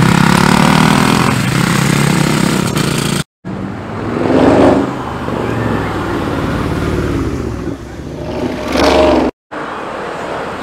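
Vehicle engines revving and accelerating past, in short cuts: a dirt bike going by, then car engines revving up hard twice. Two abrupt breaks where the cuts fall.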